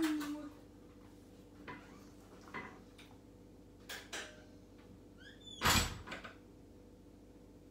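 A few soft knocks and clicks, then brief squeaks and a louder bang about five and a half seconds in, over a faint steady hum.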